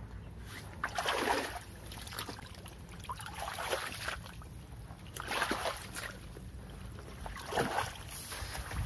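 Rice combine harvester's crawler tracks churning in soft, sticky paddy-field mud: wet sloshing and splashing that surges about every two seconds over a low steady rumble. The machine is bogged down and stuck in the mud.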